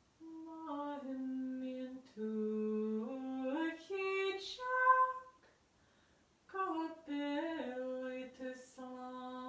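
A woman singing a traditional song unaccompanied, one voice alone in a small room. Two slow phrases of held notes that step up and down, with a pause for breath about halfway.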